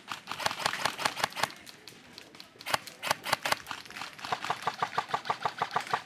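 Airsoft rifle firing three rapid bursts of evenly spaced shots, each a sharp click, with the last burst the longest.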